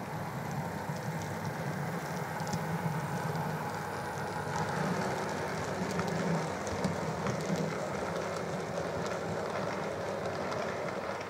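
OO gauge model freight train running past, a Class 66 locomotive hauling tank wagons: a steady motor hum with the wheels clicking and rattling over the track, dropping away at the very end as the train clears.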